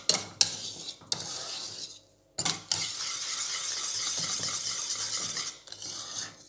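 Wire whisk stirring grated gruyère into a thick mornay sauce in a stainless steel saucepan, the wires scraping against the pan so the cheese melts in. A few sharp clicks of the whisk against the pan come in the first half, then steady rapid scraping for about three seconds.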